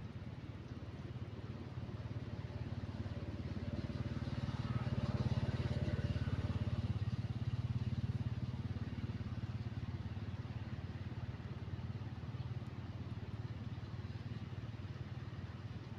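A motor engine drones steadily, growing louder about four seconds in and easing back after about seven seconds.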